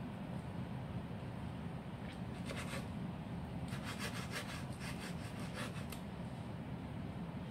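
Kitchen knife slicing raw beef on a bamboo cutting board: runs of quick strokes and taps of the blade against the wood, most of them from about two to six seconds in, over a steady low hum.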